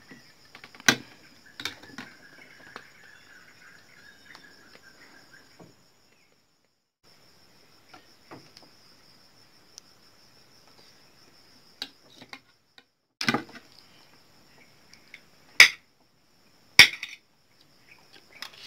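Metal spoon clinking and scraping against a glass plate and a plastic bowl, with several sharp clinks, the loudest in the second half. Under it runs a steady high chirring of night insects.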